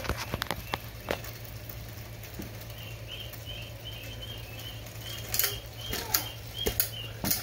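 Rubber-band-powered model helicopter (J&H Aerospace Twister) with its rotor fluttering as it flies against the ceiling. Sharp light taps come as it bumps the ceiling, a few about a second in and a cluster near the end.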